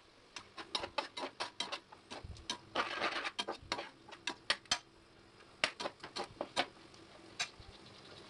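Perforated metal spatula clicking and scraping against the inside of a pressure cooker as chopped onions are stirred in oil: rapid, irregular taps that thin out near the end.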